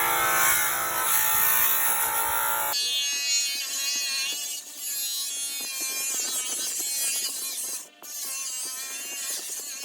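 A small handheld electric tool's motor buzzing. The sound changes abruptly about three seconds in, losing its low end.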